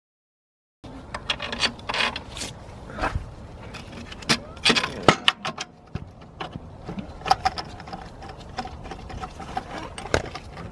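Irregular metallic clicks, clinks and knocks of tools and bolts against metal as a belt tensioner is fitted to the front of a BMW E46 engine. They start just under a second in.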